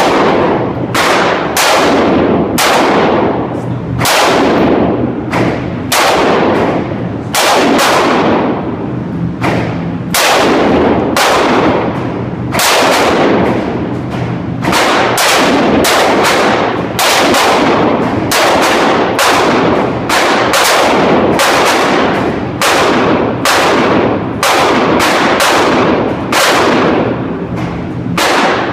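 9mm pistol shots from a Smith & Wesson M&P Shield, fired two or three a second with short pauses. Each sharp crack rings on in the echo of the indoor shooting range, over a steady low hum.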